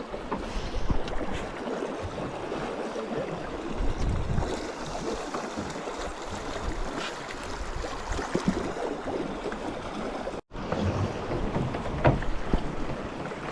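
River water rushing and lapping around a drifting boat, with wind buffeting the microphone and occasional low knocks. The sound drops out completely for an instant about ten seconds in.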